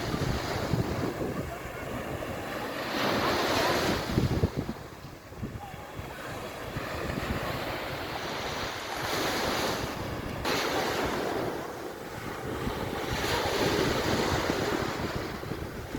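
Sea waves washing onto a beach, surging every few seconds, with wind buffeting the microphone.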